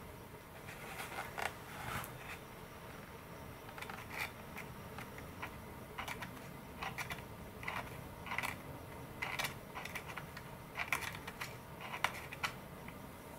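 Faint, irregular scraping and tapping of a wooden stick working epoxy into the servo tray of a model sailplane fuselage, many short strokes coming in quick clusters.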